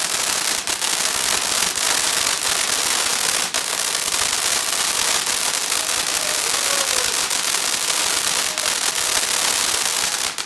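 Consumer fireworks crackling: a dense, continuous stream of rapid small pops, with a few sharper cracks standing out.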